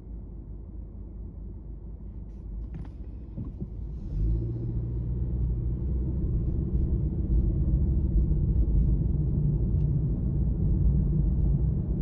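Low rumble of vehicle traffic. About four seconds in, a steady, low engine drone comes in and gets louder.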